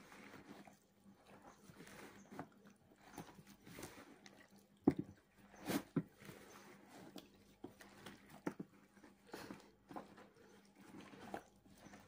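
Faint wet squelching and soft clicks of hands in plastic gloves kneading chicken pieces and potatoes in an oily zaatar marinade in a plastic basin, in irregular strokes, with two sharper, louder squelches about five and six seconds in.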